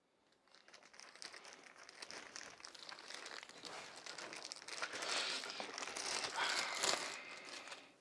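Packaging being handled, crinkling and crackling with many small clicks, getting louder about five seconds in.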